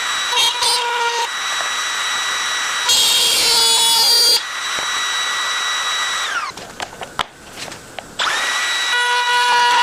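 Electric power tool working wood: a steady high motor whine that winds down and stops about six and a half seconds in, then spins back up just after eight seconds.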